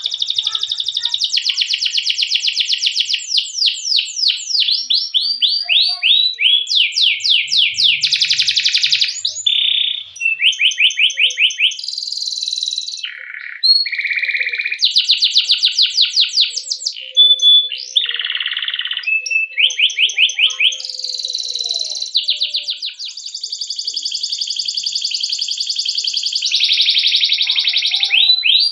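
Domestic canary singing a long, unbroken song of rapid trills and rolls. Fast repeated sweeping notes switch to a new phrase every second or two.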